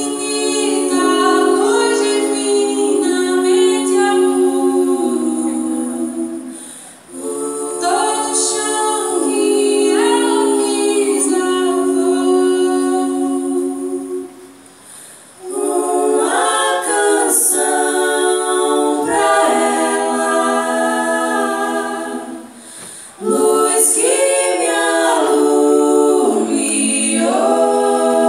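Four women's voices singing a cappella in close harmony, in four long held phrases of about seven seconds each with short pauses between them.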